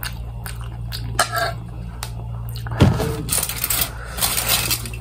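Small clicks and scrapes of a spoon in a plastic food tray, then a sharp knock a little before the middle, followed by about two seconds of aluminium foil crinkling as it is handled.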